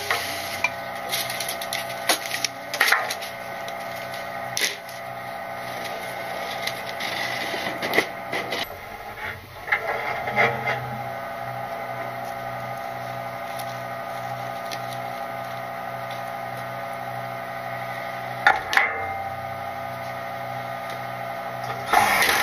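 Load Master Legacy rear-loader garbage truck running at the hopper: a steady hum and whine with scattered knocks and clatters. The low hum gets louder about ten seconds in, and a louder scraping noise starts near the end.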